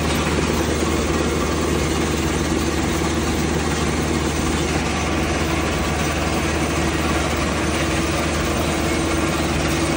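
Mobile screening plant running steadily: a diesel engine's constant low hum under the even rush and rattle of its screen and conveyors.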